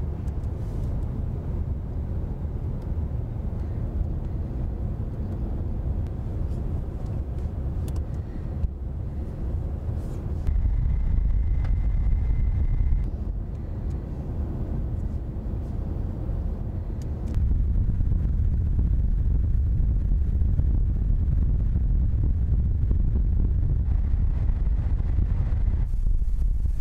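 Steady low rumble of wind-tunnel airflow over a car under wind-noise test. It steps louder about ten seconds in, eases back a few seconds later, and rises again past the halfway point, with a faint steady high tone during the first louder stretch.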